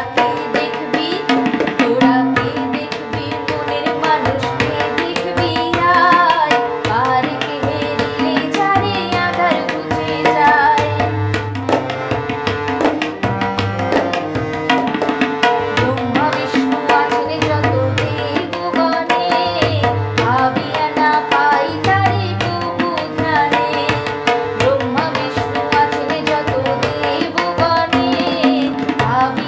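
Music of a Bengali devotional song: a melody over drum strokes that keep a steady rhythm.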